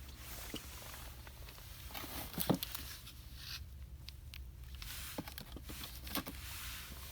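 Shop ambience: a steady low hum with scattered light clicks and knocks, the loudest about two and a half seconds in.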